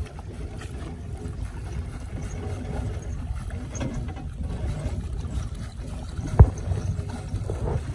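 Wet fine-mesh shrimp net being hauled by hand out of the water over a boat's side, water dripping and splashing off the mesh, over a steady low rumble. One sharp knock late on.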